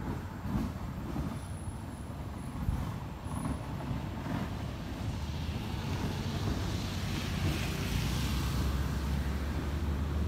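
A motor vehicle's engine rumbling, growing louder over the second half as the vehicle passes, with a hiss that swells and fades.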